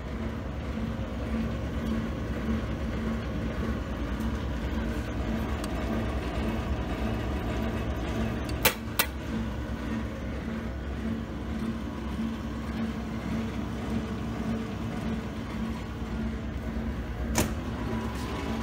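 Vector TF-156 roller compactor running under power: a steady mechanical hum with a faint regular pulse. Two sharp clicks in quick succession about halfway through, and one more near the end.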